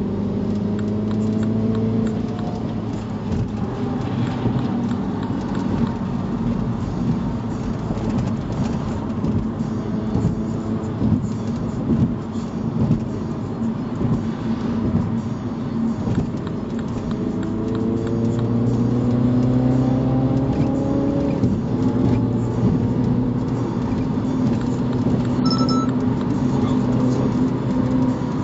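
Car engine and road noise heard from inside a moving car on a highway. The engine rises in pitch as it accelerates near the start and again about two thirds through, then drops back.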